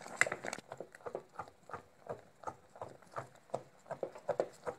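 Spatula knocking and scraping against the sides of an enamel pot while stirring a thickened cornflour milk pudding, about three knocks a second.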